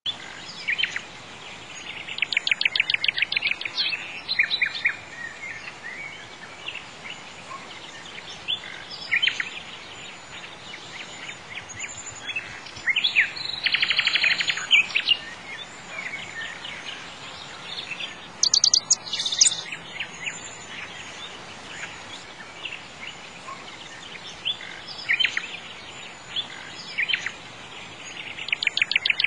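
Songbirds chirping and trilling in several bouts of rapid repeated notes a few seconds apart, over a steady faint hiss.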